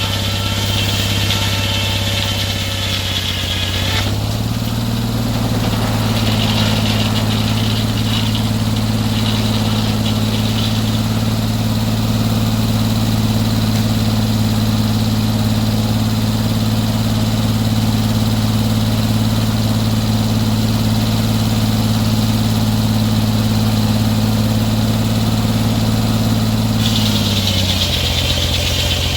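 Band sawmill's engine running steadily. Its pitch steps up about four seconds in, holds, and drops back a couple of seconds before the end. A higher whine sits over it at the start and returns after the drop.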